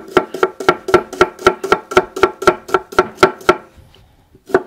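Chef's knife chopping an onion finely on a wooden cutting board: a steady run of knocks, about four a second, each with a short ring. The chopping pauses for about a second near the end, then starts again.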